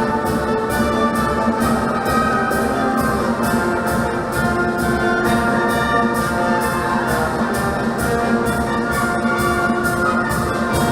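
Military march played by a brass band, with sustained brass chords over a steady, even drum beat.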